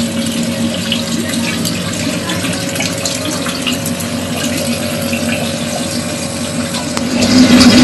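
Water trickling and splashing through a homemade aquaponics system of PVC grow pipes, over the steady hum of its water pump. The sound grows louder near the end.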